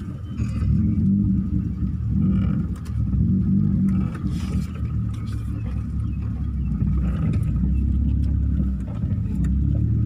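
Car driven slowly into a parking space, heard from inside the cabin: a low engine and road rumble that swells and eases over the first few seconds, then runs steadier.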